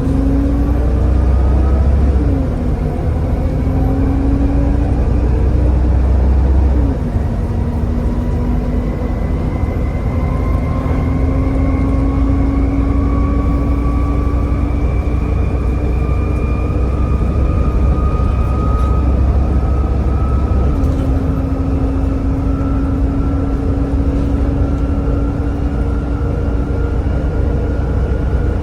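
Volvo B7TL double-decker bus with a ZF automatic gearbox pulling hard, loud, its engine note climbing and dropping sharply at gear changes about two and seven seconds in, with another change about twenty seconds in. Between the changes a whine climbs slowly with road speed over a deep rumble.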